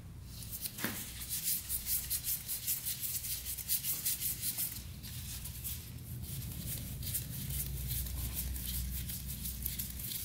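Quick repeated scraping and rubbing, about four a second, as gloved hands and a screwdriver work a carburetor loose from its rubber intake boot on a two-stroke dirt bike engine; the scraping is strongest in the first half and fades after it.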